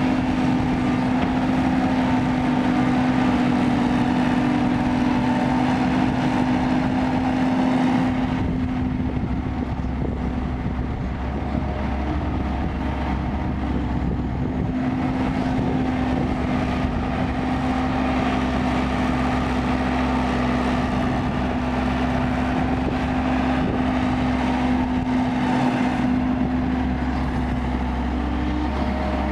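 Kobelco excavator's diesel engine running steadily while digging and loading soil. Its drone eases slightly about eight seconds in and then holds steady.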